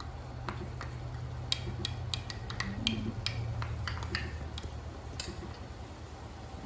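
Spatula scraping and clicking irregularly against a wok while shrimp and broccoli are stir-fried in sauce, over a steady low hum that eases after about five seconds.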